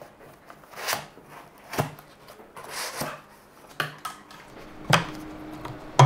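Hands handling parts of a pine-wood birdhouse and its foam packing: a few light clicks and knocks, about four, with soft rustling between them.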